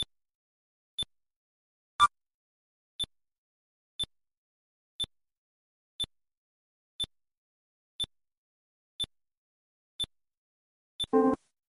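Synthesized electronic blips tick once a second, each marking a month passing in a time-lapse animation of nuclear tests, with a louder blip about two seconds in as the year turns. Just before the end a short buzzy pitched tone sounds, marking a nuclear detonation, here China's.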